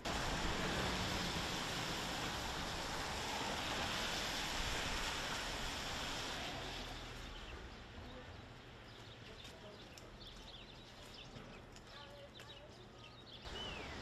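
Outdoor street ambience: a steady wash of noise, louder for the first six seconds, then quieter with faint scattered ticks.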